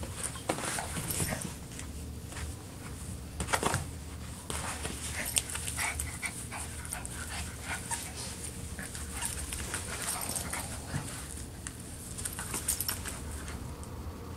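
Small dog playing tug-of-war with a plush toy held by a person's hand, with scuffling and crinkling of torn wrapping paper: many short, irregular rustles and clicks, louder for a moment about three and a half seconds in.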